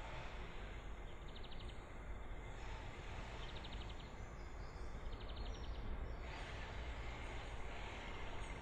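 An insect chirping in short, rapid pulse trains about every two seconds, over a low steady rumble of wind. From about six seconds in there is a soft rustling of soil being crumbled between the fingers.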